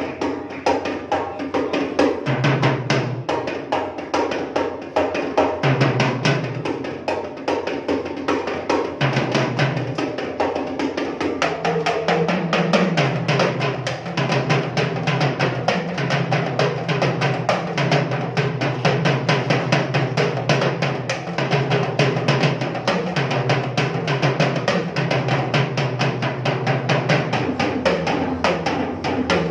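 Set of marching tenor drums (quints) played with sticks in fast, dense patterns of strokes and rolls. Steady low bass notes sound underneath, becoming continuous from about twelve seconds in.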